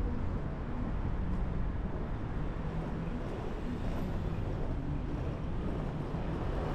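A car driving through city streets: a steady low rumble of engine and tyre noise, with the faint hum of surrounding traffic.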